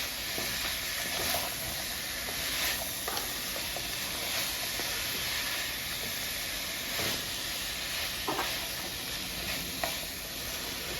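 String beans and potato chunks sizzling in hot oil while being tossed and stirred in the pot, a steady frying hiss with a few short knocks and scrapes of the stirring utensil against the pot.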